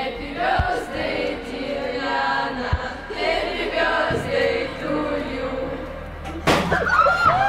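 A group of girls singing a birthday song together, with hand clapping. About six and a half seconds in, a confetti cannon goes off with a sharp pop, followed by excited squeals.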